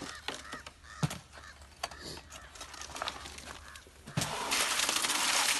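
A bucket of wet concrete mix with coarse gravel is tipped out onto the floor, a loud rushing pour starting about four seconds in and lasting nearly two seconds. Before it come a few scattered knocks and faint fowl calls.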